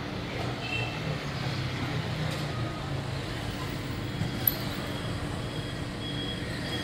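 Steady hum of street traffic, with one short sharp tick about halfway through.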